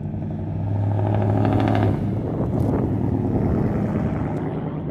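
A motor vehicle driving past, its engine sound building to a peak about two seconds in, changing pitch as it passes, then fading away.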